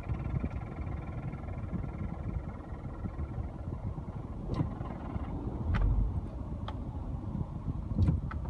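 Toyota Estima cabin noise: a low steady rumble with a handful of sharp clicking rattles from about halfway through, heard from inside the car while it stands in gear. The owner suspects something loose behind the trim or dash.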